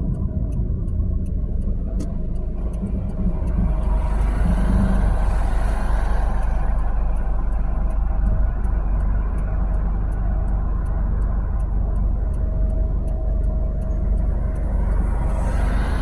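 Steady low road and engine rumble heard from inside a car driving slowly behind a semi-trailer truck. The noise swells about four seconds in and again near the end, with faint regular ticking.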